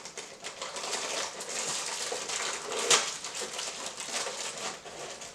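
Crinkly plastic cookie packaging being handled and opened, a steady run of crackles with one sharp snap about three seconds in.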